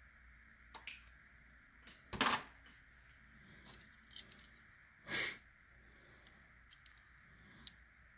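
Faint handling noises of a small diecast toy car being picked up and turned in the fingers: scattered light clicks and two louder brief rustles, about two and five seconds in.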